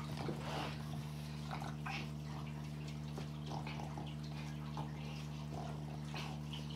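Faint scattered scuffles and rustles of a small dog and a child play-wrestling on carpet, over a steady low hum.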